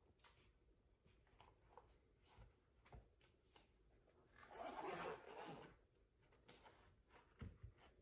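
Faint handling of a zippered fabric pouch: a soft rubbing rustle about halfway through, then two light taps near the end as it is set down upright.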